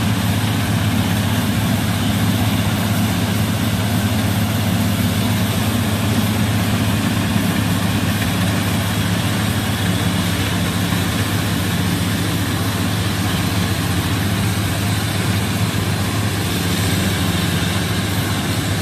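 Gatra rice combine harvester running steadily while it harvests a rice paddy, a constant deep engine drone with an even noisy wash above it.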